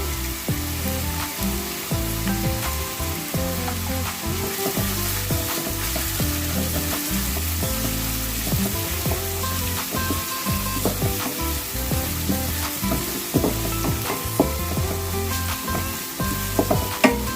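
Chopped onions and curry leaves frying in hot oil in a kadhai, with a steady sizzle. A spatula scrapes and knocks against the pan now and then as they are stirred.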